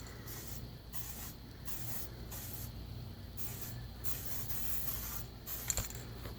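Aerosol spray paint can hissing in repeated short bursts, with a longer spray about four seconds in, laying a black base coat.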